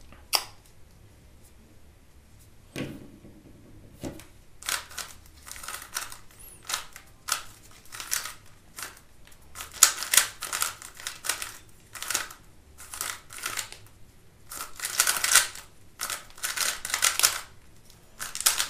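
A YJ GuanLong V3 3x3 speedcube being turned fast during a solve: plastic layers clacking in quick bursts of turns with short pauses between. There are only a few single clicks at first, then rapid turning from about four seconds in.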